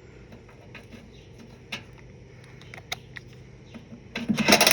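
An impact wrench with a 7/16 socket hammering on a bolt for about a second near the end, a loud rapid rattle, after a few faint clicks and taps.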